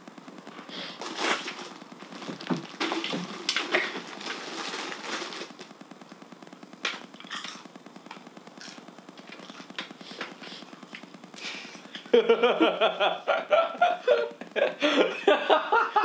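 Scattered rustling and light clicks, then about three quarters of the way in, two people break into loud laughter.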